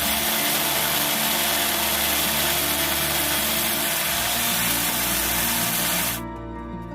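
A power tool running steadily at a loud, even pitch, cutting off abruptly about six seconds in.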